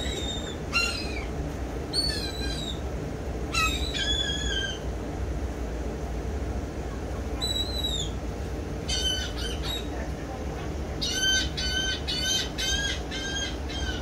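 Gulls calling: separate short calls that drop in pitch at the end, then near the end a quick run of about six calls in a row. A steady low rumble runs underneath.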